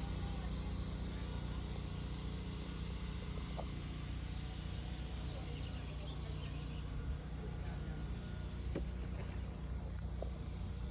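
Boat motor running steadily, a low even hum, with a few faint ticks.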